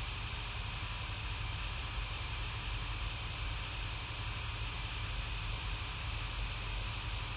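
Steady electronic hiss with a low hum underneath, unchanging throughout.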